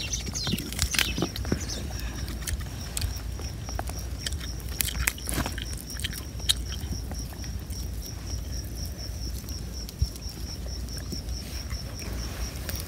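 Light rustles and clicks of hands picking food off a big leaf, with an insect's high, evenly pulsing chirp held steady under them.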